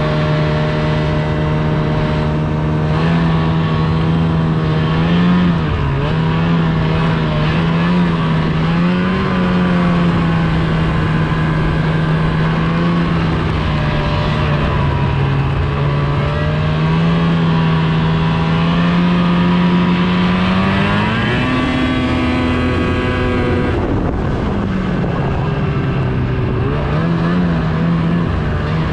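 Snowmobile engine running under way, its pitch wavering with the throttle. About 21 seconds in it revs up higher, holds for a few seconds, then drops back.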